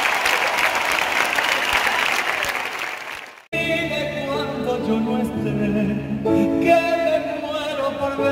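Concert crowd applauding and cheering, fading away until it cuts off sharply about three and a half seconds in. A male singer then sings a slow ballad over sustained instrumental accompaniment.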